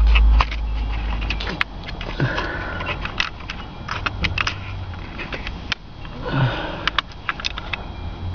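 Hands working on a disassembled steering column: a scatter of small sharp clicks and knocks of plastic and metal parts and wiring connectors being handled, with a low rumble at the very start.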